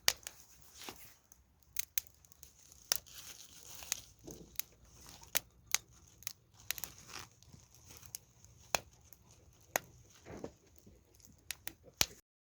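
Wood campfire crackling, with irregular sharp pops and snaps a few times a second.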